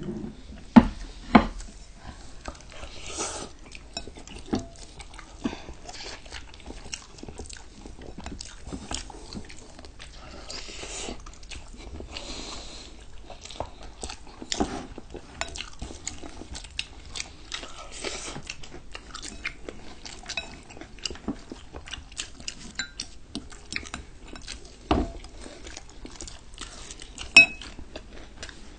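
Close-miked eating: chewing and crunchy bites of crispy fried chicken, with frequent clicks and clinks of utensils against plates and bowls. A few sharper knocks stand out about a second in and again near the end.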